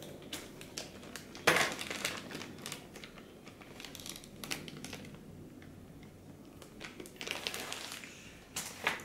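Clear plastic accessory bags crinkling as they are handled, in several short irregular bursts, the sharpest about one and a half seconds in and another cluster near the end.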